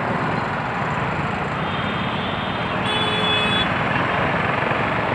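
Motorcycle engine and surrounding motorbike and car traffic, heard from the rider's seat while creeping through dense traffic: a steady rumble and road noise. A short, faint high beep sounds about three seconds in.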